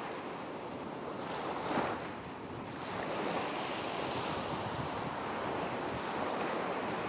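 Ocean surf: waves washing in a steady rushing noise that swells briefly about two seconds in.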